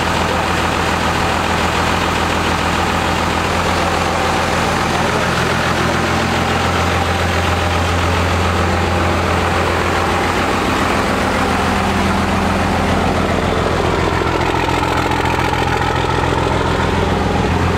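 Second-generation Dodge Ram dually's 5.9-litre Cummins inline-six turbo diesel idling steadily.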